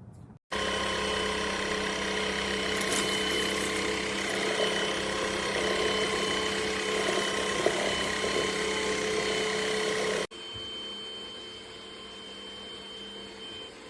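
Cordless stick vacuum motor running with a steady whine. About ten seconds in it cuts off abruptly and a quieter steady run continues.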